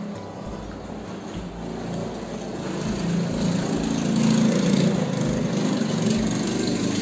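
An engine running, growing louder over the first four seconds or so and then holding steady.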